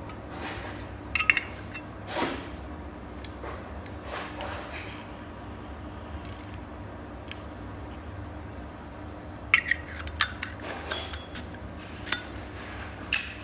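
Metal Zippo lighters being handled, giving sharp metallic clicks and clinks: a few scattered ones at first, then a quick run of them near the end.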